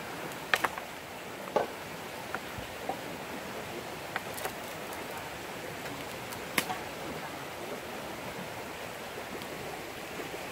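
Steady rush of a nearby forest stream, with scattered sharp clicks and snaps as vine lashings are pulled tight around a wooden crossbeam and post, the loudest about half a second and six and a half seconds in.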